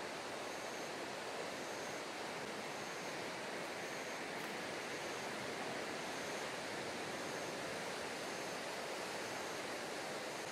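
Steady rushing noise of choppy sea water and wind, even throughout, with a faint short high tone repeating about once a second.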